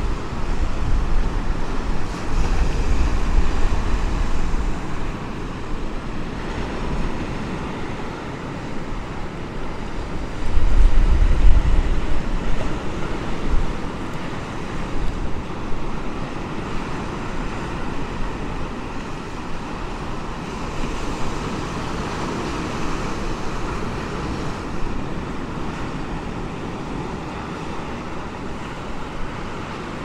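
Wind buffeting the microphone in gusts, heaviest in the first few seconds and again about eleven seconds in, over a steady rush of surf.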